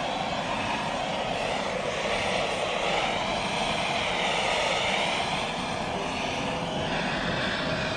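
Propane torch burning steadily, a continuous rushing noise, as it heats the end of a rubber hose so that it expands enough for a new coupler's barb to slide in.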